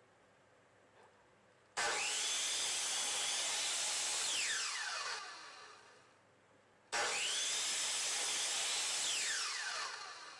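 Slide circular saw (sliding miter saw) switched on twice, about two seconds in and again about seven seconds in: each time the motor whines up to speed, runs for about three seconds while the blade cuts into a thick wooden block, then winds down with a falling whine after switch-off.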